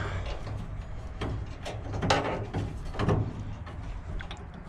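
A steel spanner clinking and scraping on bolts and the sheet-steel body of a Bizon combine harvester as the sieves are unbolted. It makes short irregular knocks with a couple of longer metallic rasps.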